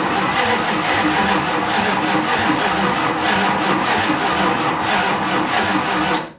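Chrysler 360 V8 being cranked over by its starter motor for about six seconds without firing, an even rhythmic churn that stops suddenly near the end. The engine is flooded, its electric choke stuck fully closed.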